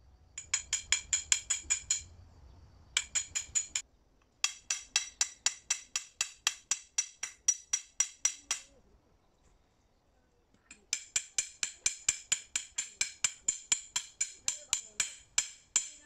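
Hammer driving a trellis stake into the ground: rapid, evenly spaced ringing clinks, about five or six blows a second, in four runs broken by short pauses, the longest of about two seconds near the middle.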